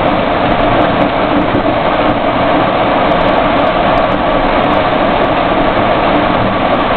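Steady engine and road noise heard inside the cabin of a military vehicle driving on a dirt road, with a few faint clicks.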